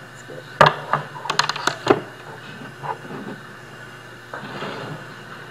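A quick run of sharp knocks and clicks over about a second and a half as things are set down and handled at a lectern with a microphone, then softer rustling near the end.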